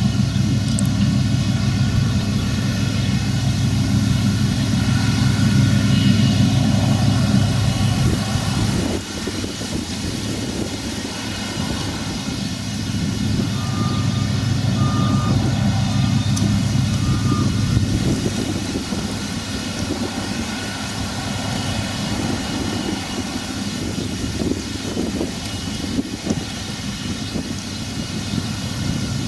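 Claas Arion tractor pulling a Claas large square baler, its diesel engine running steadily under load with the baler's working clatter. The sound changes abruptly about nine seconds in, and a few short high beeps come in the middle.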